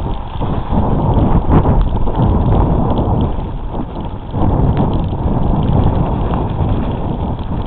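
Heavy wind buffeting on the microphone over the rumble and rattle of a bicycle riding fast over a rough dirt trail, with irregular knocks from the bumps.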